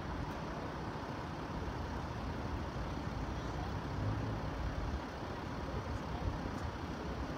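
Steady road-traffic noise, mostly a low rumble.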